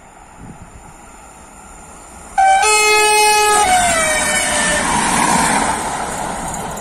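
Passing electric multiple unit passenger train sounding its horn: a loud steady horn chord starts suddenly and holds for over a second, then its pitch slides down as the train goes by, followed by the rush of the train passing at speed, fading away.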